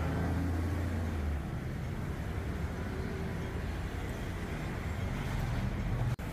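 Street traffic noise: a motor vehicle's engine running close by with a low steady hum that stops about a second and a half in, leaving a general rumble of road traffic that swells again near the end.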